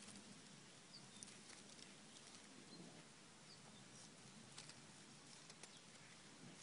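Near silence, with faint scattered ticks and rustles and a few faint, short high chirps.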